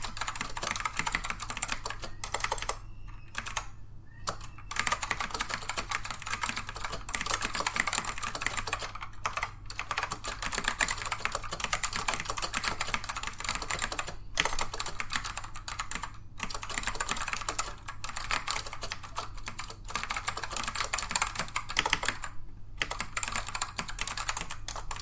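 Fast typing on a Dell AT102W keyboard with black Alps switches: a dense run of non-clicky keystrokes, broken by a few short pauses.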